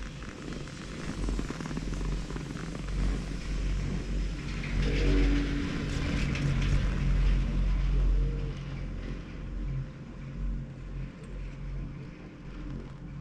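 Chairlift running, heard from the moving chair: a steady low rumble and hum with wind on the microphone. About four seconds in it grows louder with a hiss and rapid clicking, then eases off near eight seconds, as the chair passes a lift tower's sheave wheels.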